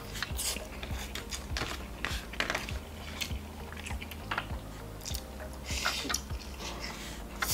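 Close-up eating sounds: a man slurping and chewing mee kolok noodles, with small clicks of a metal fork and spoon against the bowl and a plastic container.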